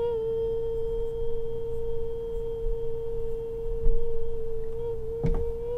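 A girl's voice holding one long, steady high note for several seconds, with a short knock near the end just before the note drops and breaks off.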